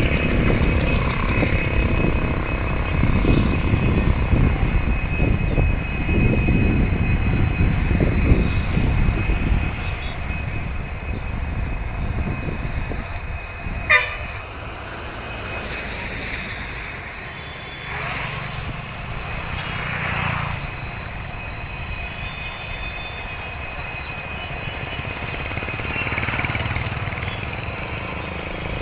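EMD WDG4 diesel locomotive running, a heavy low rumble that is loud at first and fades away over the first half. A single sharp click comes about fourteen seconds in, followed by a quieter rumble that swells a few times.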